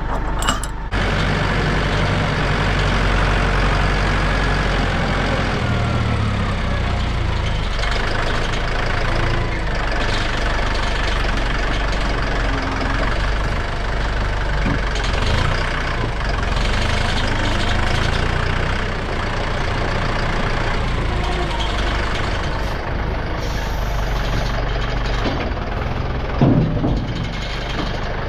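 Heavy farm machine's engine running steadily, its engine speed shifting a few times, with a brief louder clunk near the end.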